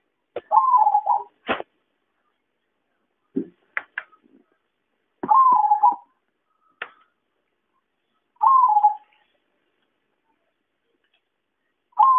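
Zebra dove (perkutut) calling: short cooing phrases about three seconds apart, each with a quick bend in pitch, at the start, in the middle, past two-thirds of the way and at the end. A few sharp clicks fall in the gaps between the phrases.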